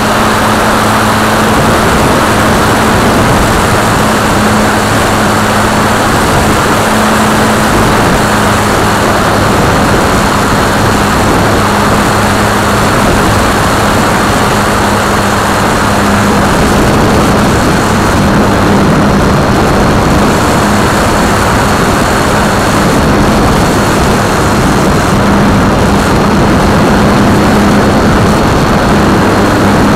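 Multiplex FunCub's electric motor and propeller running in flight, heard from a camera on the plane: a steady propeller drone with a thin high whine, under loud rushing wind.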